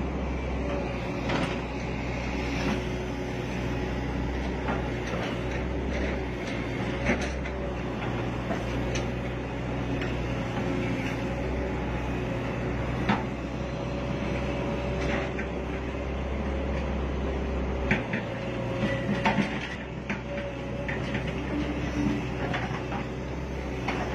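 Excavator's diesel engine running steadily with a low hum and a held tone above it, heard from the operator's cab. Scattered clanks and knocks come from the boom and bucket as it digs in wet peat, and the hum drops in level about three quarters of the way through.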